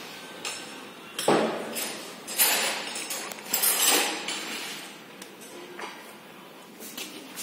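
Metal tools clanking and knocking in a car repair workshop: four or five sharp hits in the first four seconds, each with a short ringing tail, then a few fainter taps.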